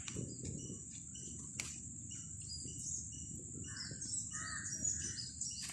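Outdoor birdsong: small birds chirping, and a crow cawing a few times a little after four seconds in. Under it runs a steady high insect drone and a low steady rumble, with one sharp click about one and a half seconds in.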